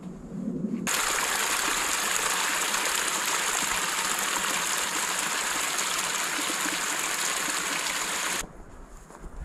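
Steady rush of a mountain stream. It comes in suddenly about a second in and cuts off suddenly near the end.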